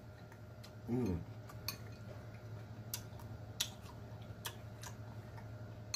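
Mouthful of cooked greens being chewed, with scattered wet smacks and clicks, and a short falling 'mm' hum about a second in.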